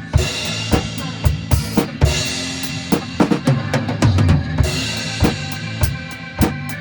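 Drum kit played along to a backing track: a steady kick-and-snare beat with cymbal crashes at the start, about two seconds in and again past the middle.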